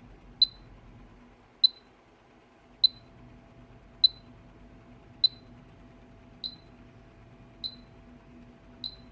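An electronic beeper giving short high-pitched beeps at an even pace, about one every 1.2 seconds, eight in all; the last three are much quieter. A faint steady hum lies underneath.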